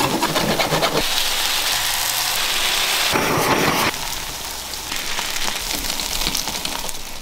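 Takoyaki batter sizzling in a hot takoyaki pan, a dense steady hiss, with scattered clicks and scrapes of metal tools against the pan.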